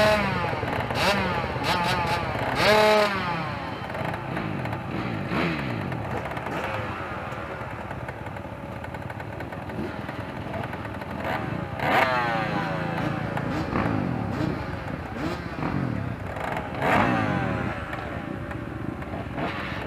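Several off-road dirt bike engines idling together, with quick throttle blips rising and falling in pitch every few seconds, the loudest near the start, about three seconds in, and around twelve and seventeen seconds in.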